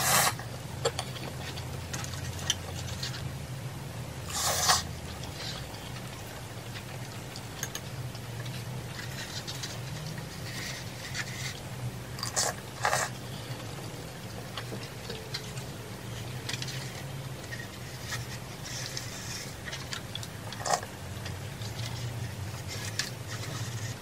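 Close-up eating of cup ramen: a few short slurps of noodles and faint chewing, with occasional clicks of metal chopsticks and spoon against the bowl, over a low steady hum.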